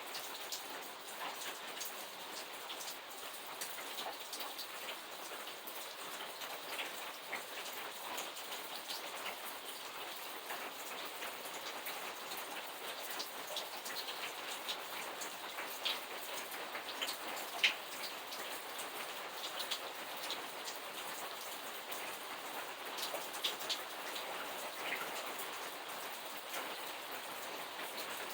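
Steady rain falling, individual drops pattering on a surface, with a few sharper, louder drop hits scattered through.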